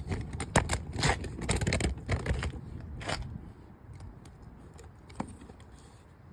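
Hand tools clicking and scraping on a car's brake caliper pin bolt, a quick irregular run of metal clicks for about three seconds, then one faint click later on.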